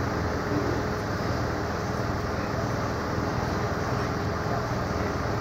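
Steady low drone of parked emergency vehicles' engines idling, an even hum with no change.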